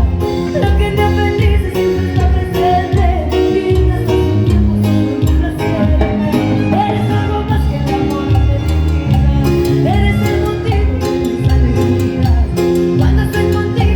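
Live band playing Latin music with a steady bass line, guitar and percussion, with some singing.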